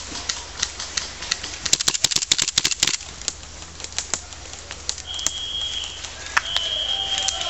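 Airsoft gunfire: sharp cracks and pops, with a rapid flurry of about a dozen shots around two seconds in. Then a referee's whistle blows twice, a short blast and then a longer one near the end, signalling that the game is over.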